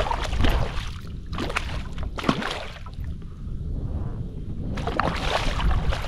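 Wind rumbling on the microphone over water lapping around a kayak, with a few short sharp knocks and a brief rush of noise near the end.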